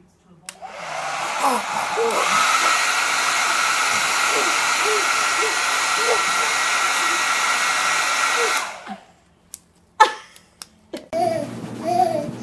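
An electric fan-motor appliance runs with a steady rushing whoosh and a high whine, starting about half a second in and cutting off after about eight seconds, while a baby coos over it. After a few clicks, a baby babbles loudly near the end.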